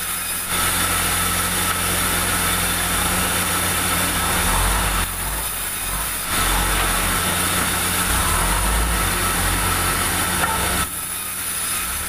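Large vertical band saw running steadily and cutting light, soft pulai wood, the blade's hiss over the machine's hum. The cutting noise eases twice, about five seconds in and again near the end, between passes of the plank.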